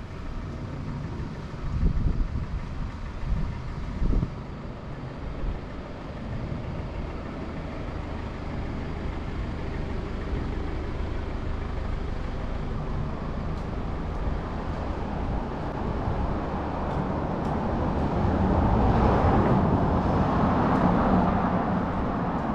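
Road traffic on a city street, with a vehicle passing close by and the noise swelling near the end. Two short low thuds come about two and four seconds in.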